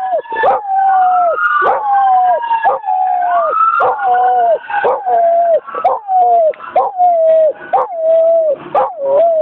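A German Shepherd/Golden Retriever mix dog howling at a siren: a run of long howls, about one a second, each held and then dropping in pitch at its end. The howls grow shorter and more broken near the end. Behind the first few seconds a siren's wail slides slowly up and down.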